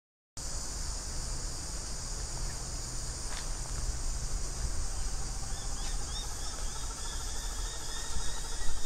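Outdoor ambience of a steady high-pitched insect chorus, with wind rumbling on the microphone that gusts louder near the end, and a few faint bird chirps and rapid repeated calls in the second half.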